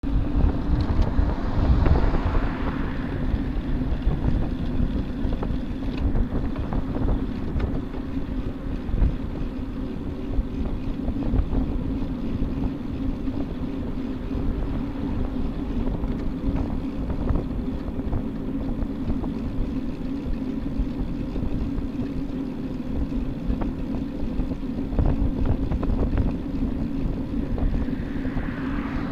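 Wind rushing over a bicycle-mounted camera's microphone while riding, over a steady road rumble. A car passes close a second or two in, and another comes up near the end.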